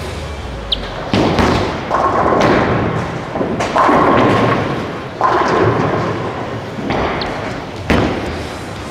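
Bowling centre lane sounds: bowling balls thud onto the wooden lane and roll, and pins crash. Several sharp thuds are spread through the stretch.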